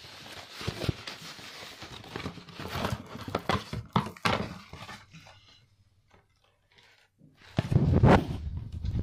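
Packaging and a Blu-ray case being handled: a run of small clicks, taps and rustles, then a short quiet spell. Near the end comes loud, low rumbling handling noise.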